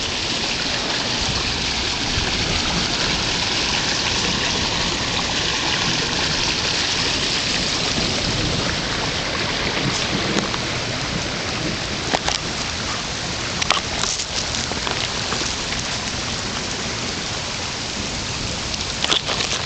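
Steady hiss of rain and running floodwater, with a few short sharp crackles about halfway through and again near the end.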